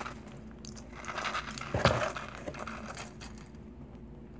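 Faint crinkling and clicking as a plastic blister pack of chocolate candies is handled, with one soft thump about two seconds in.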